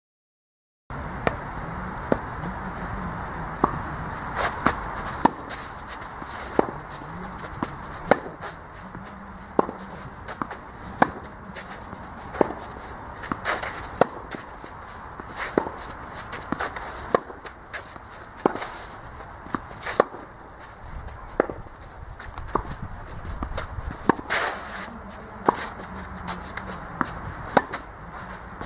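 Tennis ball and racket strikes in a rally on a clay court: sharp hits and bounces about once a second, with shoes scuffing on the clay between them. The sound drops out for under a second at the start.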